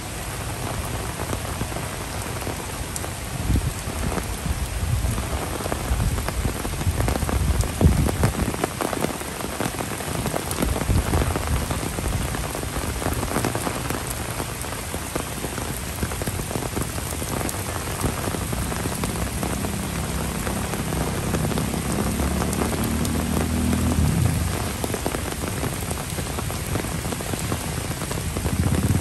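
Steady rain falling on wet paving, grass and trees.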